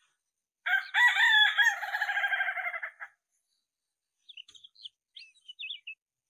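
A rooster crows once, loud, for about two and a half seconds. Then, from just past the middle, an oriental magpie-robin gives a few short, quick whistled notes.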